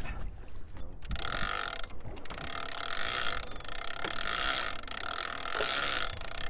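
Penn International big-game reel's clicker ratchet buzzing steadily as line is pulled off the spool, starting about a second in and running about five seconds with a brief break: a fish taking line.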